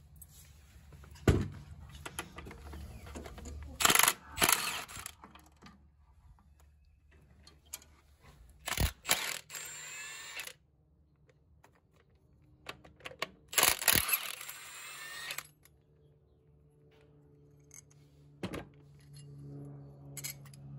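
Red Milwaukee cordless impact wrench hammering out the flywheel bolts in three bursts of a second or two, its motor whine rising and falling within each burst. Single metal clanks come at about a second in and near the end.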